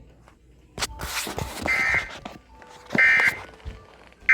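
Emergency Alert System end-of-message data bursts: short, harsh digital SAME tone bursts, about 1.3 s apart, two whole and a third beginning at the end, marking the close of the flash flood warning. A short burst of noise and clicks comes about a second in, before the first tone.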